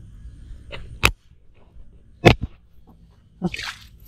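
Water dripping and splashing close to the microphone, with two sharp splats about one and two seconds in and a short splash near the end.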